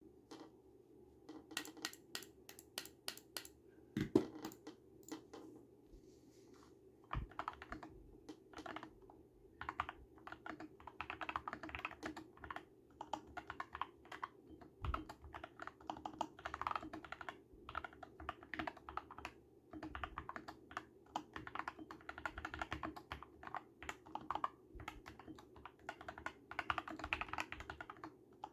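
Epomaker SK64 mechanical keyboard with lubed Gateron Brown tactile switches being typed on; it is tape-modded in three layers, PCB tape-modded and has Holee-modded stabilizers. A quick run of evenly spaced keystrokes, a heavier thump about four seconds in, then bursts of fast typing.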